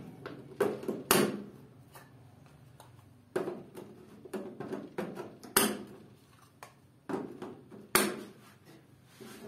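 Plastic current controller relay modules being pressed and snapped onto a metal DIN rail: a scatter of sharp clicks and knocks, three of them standing out about a second in, midway, and about eight seconds in.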